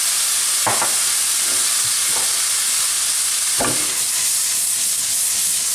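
Prawns and onions sizzling steadily in a hot wok as freshly added soy sauce cooks off, with two short scrapes about three seconds apart.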